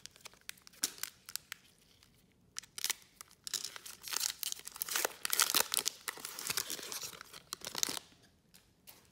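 Trading card pack wrapper torn open by gloved hands, then crinkling and rustling as the cards are pulled out, from about three and a half seconds in until near the end. A few light taps and crinkles come before the tear.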